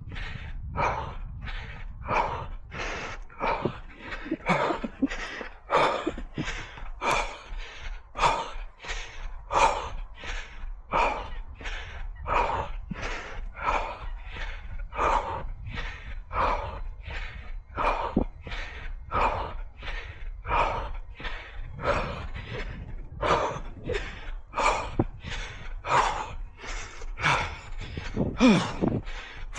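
A runner's hard, rhythmic breathing, about one and a half gasping breaths a second, over a steady low rumble.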